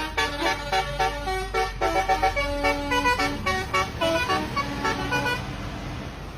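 Basuri "telolet" multi-tone bus horn playing a quick melody of short notes, which stops about five seconds in. A low steady rumble continues under it and after it.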